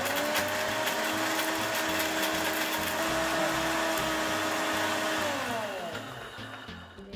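Orpat 1200 W mixer grinder running at full speed, grinding coconut in its stainless steel jar: a loud, steady high whine. About five seconds in it is switched off, and the pitch falls away as the motor winds down.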